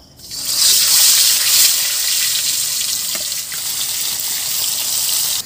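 Marinated fish pieces sizzling loudly in hot oil in a wok (kadai), just dropped in to fry. The hiss swells over the first half second and then holds steady.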